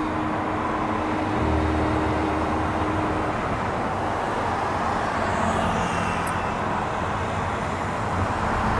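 Car driving through city traffic: steady road and tyre noise with the hum of traffic, and a steady low hum for the first three seconds or so.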